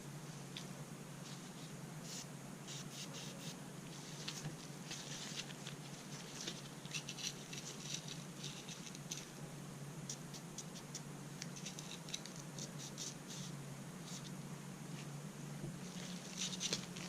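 Light, scratchy rubbing and brushing from hand-cleaning GSG-16 rifle parts, in quick irregular strokes, over a steady low hum.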